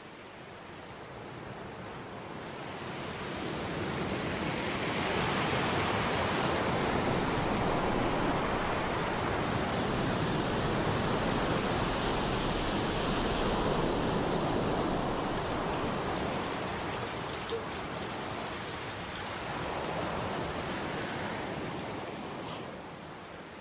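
A heavy torrent of water pouring down and splashing over a room, like a cloudburst indoors: a dense, even rush that swells over the first few seconds, holds, and eases near the end.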